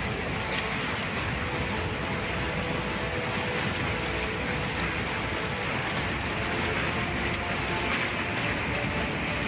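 Muddy floodwater pouring over a concrete weir and churning in the turbulent pool below: a steady, unbroken rushing noise.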